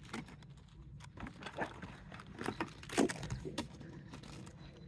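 Rummaging through a bag and handling packaged food: scattered light clicks, taps and rustles, with a sharper knock about three seconds in.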